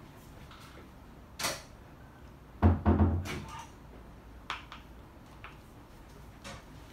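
A small spoon clicking and scraping against a plastic baby bowl. Two heavier knocks a little under three seconds in are the loudest sounds.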